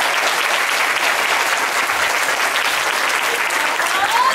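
Large crowd of seated people clapping steadily.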